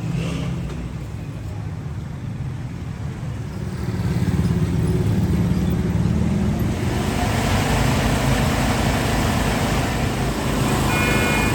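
Busy street traffic: vehicle engines running close by with steady road noise, growing louder about halfway through, and a brief high tone near the end.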